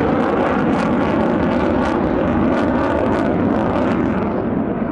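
F-35A Lightning II fighter's single turbofan engine as the jet flies past overhead: loud, steady jet noise, its highest hiss thinning out near the end.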